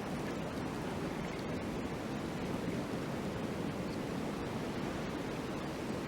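Steady wind blowing in falling snow: an even, low rushing noise with no separate sounds standing out.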